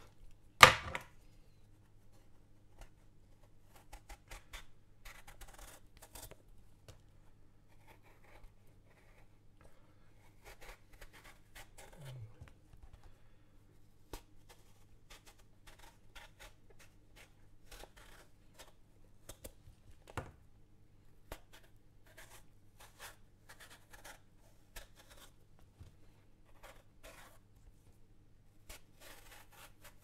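Vegetable peeler drawn along an eggplant: short rasping strokes of the blade stripping the skin, coming in irregular clusters. A sharp knock about a second in is the loudest sound, with a faint steady low hum underneath.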